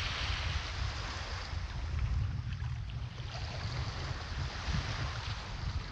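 Small waves breaking and washing up a sandy beach in a steady hiss that swells and fades, with wind rumbling on the microphone.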